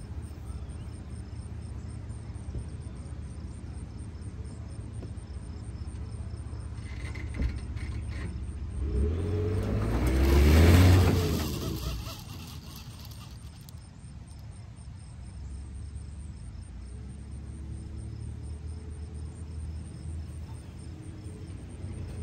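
Ford F-150 pickup engine running at a low steady level, then revving up hard as the truck accelerates away, loudest about eleven seconds in, before dropping back to a steady low run.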